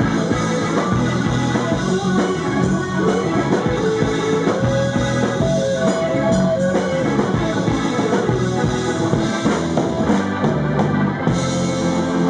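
Live rock band playing: electric guitar over drum kit.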